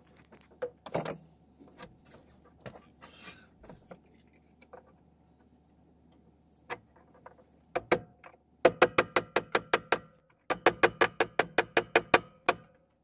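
Rapid, sharp metallic clicking from a hand tool, about five or six clicks a second, in two runs starting about eight seconds in with a short break between them. Quieter rustling and scattered light clicks come before it.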